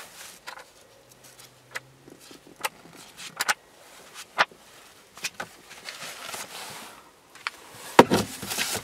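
Pages of a paperback car owner's manual being flipped: scattered crisp paper flicks and rustling. Near the end there is a louder knock as the booklet is pushed into the plastic glove compartment.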